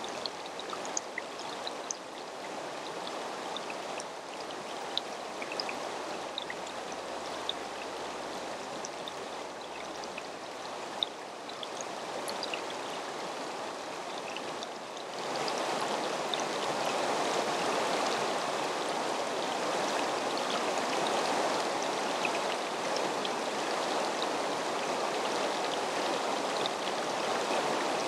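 Shallow mountain stream flowing over stones: a steady rush of water with small trickling ticks, growing louder and fuller about halfway through.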